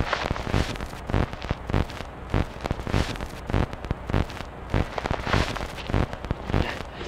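Irregular crackling and popping of glitching Hi8 videotape playback, with sharp clicks several times a second over a rough static hiss.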